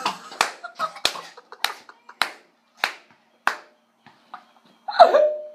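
A series of sharp hand claps, about eight of them unevenly spaced over three and a half seconds, followed about five seconds in by a short, loud vocal cry.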